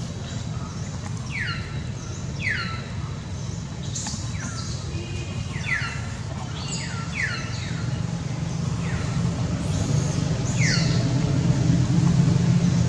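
Short, high animal calls, each sliding down in pitch, about seven of them at irregular intervals, over a steady low hum that grows louder toward the end.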